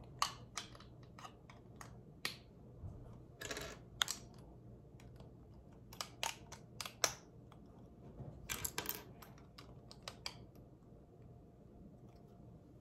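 Small plastic Lego pieces clicking and clattering as they are picked through and pressed together, with a few short rustles.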